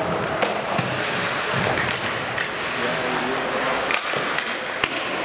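Ice hockey skates scraping and carving on the ice during play. Sharp clacks of sticks on the puck come about four times.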